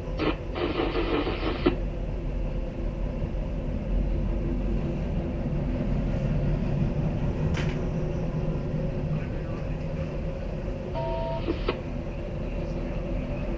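Railroad scanner radio with the squelch open: a hiss of static right at the start, and a short burst of static with two beep tones about eleven seconds in. Under it runs a steady low rumble.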